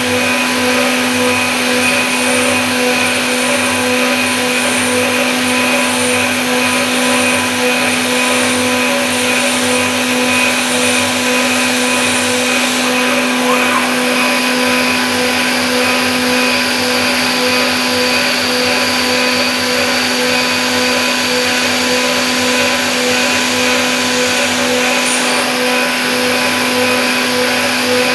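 CNC milling machine spindle running at speed, a steady whine made of several constant tones over an even hiss, while a small thread mill cuts a thread in a metal block.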